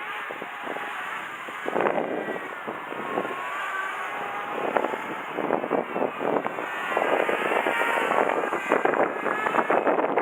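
Electric motors of radio-controlled aircraft whining, their pitch rising and falling as the throttle changes, with strong wind buffeting the microphone in gusts.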